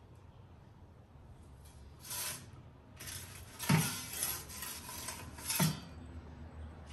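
Metal pizza peel scraping across the floor of a wood-fired pizza oven in short strokes, starting about two seconds in. There are two heavy knocks about two seconds apart as the peel bumps the oven.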